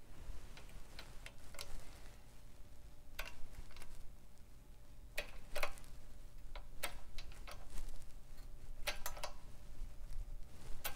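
Irregular sharp metallic clicks and ticks, some in quick clusters, as a hand-operated jack press pushes a steel wastegate bushing into a cast turbocharger turbine housing.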